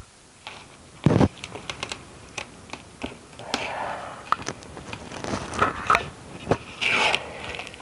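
Fingernails picking and scratching at the packing tape on a cardboard box: irregular clicks and taps, short scraping rips of tape, and a heavier knock about a second in.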